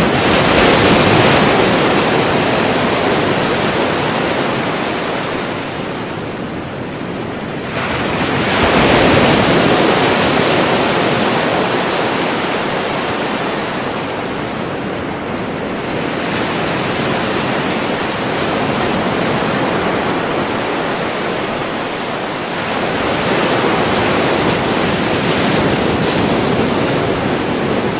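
Ocean waves breaking on a shore: a steady wash of surf, with a big wave crashing about a second in and another about eight seconds in, then smaller swells as further waves break.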